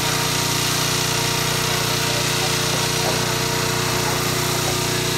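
A machine running steadily nearby: a constant loud drone with a low hum under a broad hiss.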